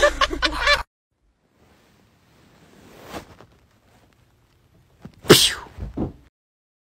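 A sneeze: a loud, sharp burst about five seconds in that falls in pitch, followed by a shorter sound just after, with a softer breathy swell a couple of seconds before it.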